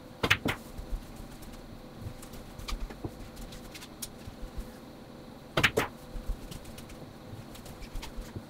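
Billiard balls clacking: a sharp double clack near the start, and another double clack a little past halfway, with a few faint ticks between.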